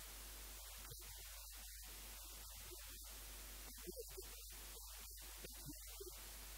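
Steady electrical hum and hiss from the recording chain, with faint, choppy fragments of a man's voice through a microphone breaking through it now and then.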